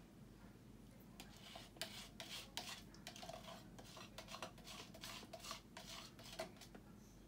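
Last of the acrylic pouring paint being scraped out of a plastic cup, a run of short, irregular scraping strokes starting about a second in.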